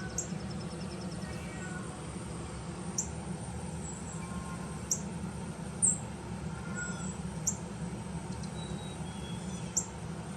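Persian kittens giving faint, high mews and short squeaks, a handful spread through, over a steady low hum.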